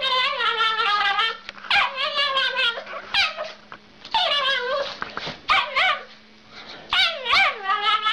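A dog making strange, drawn-out vocal noises: about six long calls in a row with short pauses between them, each wavering up and down in pitch.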